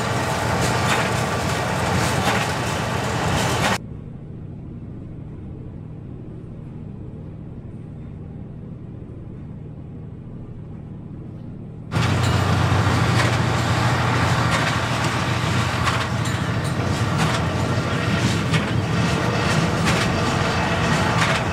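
Fendt 942 Vario tractor running under load, pulling a Krone BIG Pack 1290 large square baler that clatters and knocks as it packs hay. For a stretch in the middle the sound is heard muffled from inside the tractor cab, then it comes back loud and full.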